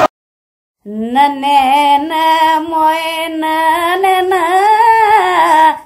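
Just under a second of silence, then a single high voice singing a slow melody without accompaniment, its pitch wavering and curling on long held notes. It fades out just before the end.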